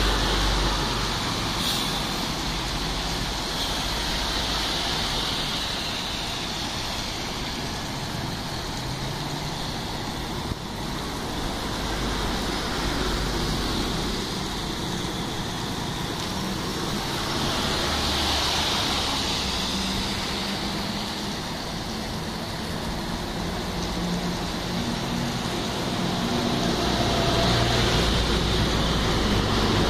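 Steady rain hiss mixed with traffic on wet streets, swelling and fading as vehicles pass, with one louder pass about two-thirds of the way through and a low rumble near the start and end.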